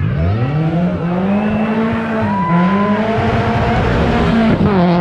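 Rally car engine revving hard as it accelerates out of a hairpin. The pitch climbs, drops at a gear change about two and a half seconds in, then climbs again.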